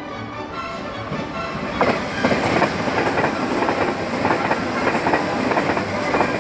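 Background music fades out over the first moments, then an electric express train runs past close by at speed: a loud rush with a rapid clickety-clack of wheels over rail joints from about two seconds in.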